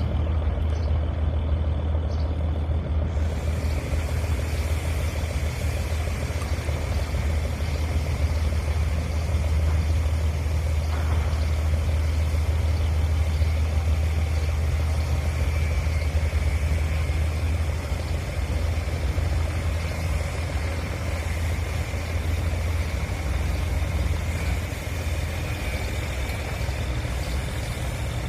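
Cargo ship's engine running with a steady low drone, joined by a wider rushing noise about three seconds in.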